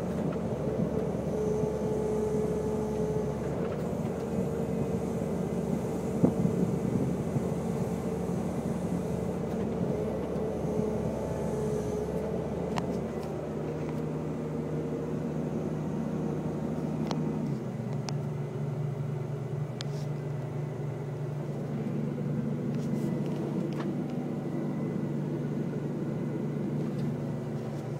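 Caterpillar 320C hydraulic excavator's diesel engine and hydraulic pump running, heard from inside the cab, with a steady whine while the arm and bucket are worked. There is a sharp knock about six seconds in. The engine then drops to a lower speed, about halfway through and again a few seconds later.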